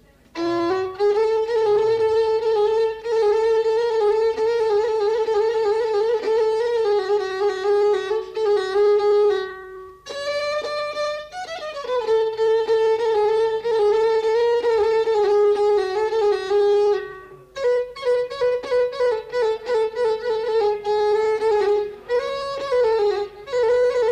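Violin playing an Arabic melodic interlude, holding long notes and sliding between them, with two brief pauses in the phrasing.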